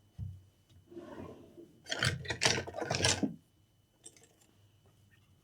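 Handling noises from a laptop RAM module being swapped: a light knock, then about a second and a half of scraping and rattling as the memory stick is worked in and out of its slot.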